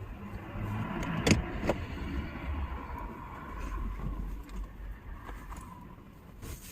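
A car driving past: engine and tyre noise swells and then fades over a few seconds, with a couple of sharp clicks about a second in.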